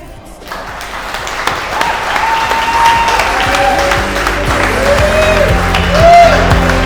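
Wedding guests applauding after a speech. The applause starts about half a second in and grows louder, over background music.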